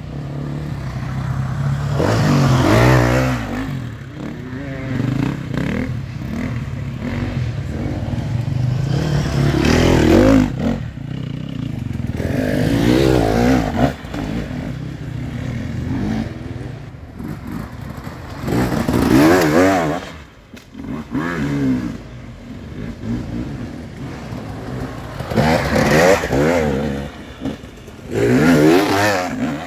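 Enduro dirt bikes revving in repeated surges, the engine pitch climbing and falling again, as they haul up a steep muddy climb, with scraping and clattering mixed in.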